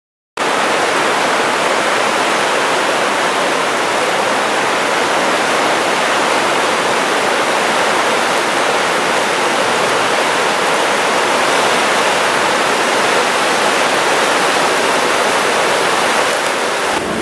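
Whitewater rapids of the Maipo River rushing over rocks: a loud, steady rush of water that starts about half a second in.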